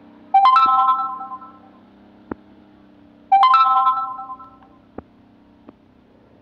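Two loud ringing chime tones about three seconds apart. Each is a chord of clear steady pitches that starts sharply and fades over about a second and a half. They sit over a steady low hum, with a few sharp clicks between and after them.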